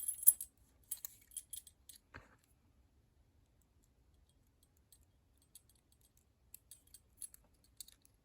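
A brass padlock and steel lock picking tools being handled: bright metallic jingling and clicks in the first two seconds, a duller knock just after, then a few faint scattered clicks.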